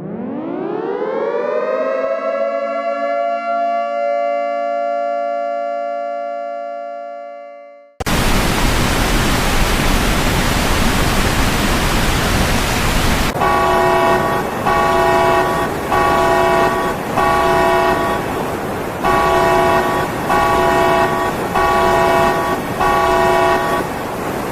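An emergency siren winds up over a couple of seconds to a steady high wail, then cuts off after about eight seconds. A loud rushing roar follows. Over it, a horn sounding a chord of several tones blares in repeated blasts about once a second.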